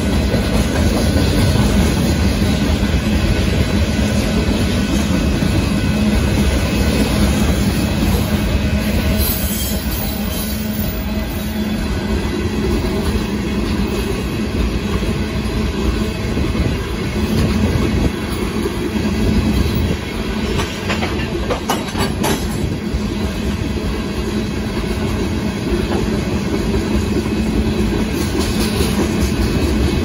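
Loaded freight train of rock-filled gondola cars rolling past at speed: a steady rumble and clatter of wheels over the rail joints, with a few sharp knocks a little past twenty seconds in.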